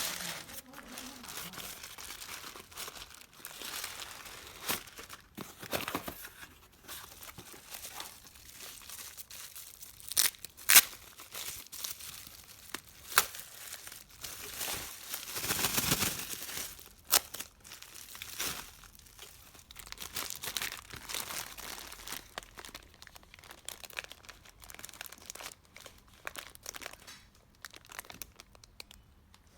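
Packaging of washi tape rolls crinkling and rustling as it is handled and opened, with scattered sharp clicks and a longer, louder tearing stretch about halfway through.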